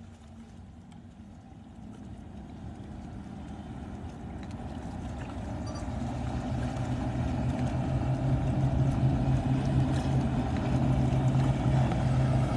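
A motorboat's engines droning steadily as the center-console boat approaches at speed, growing louder all the way through.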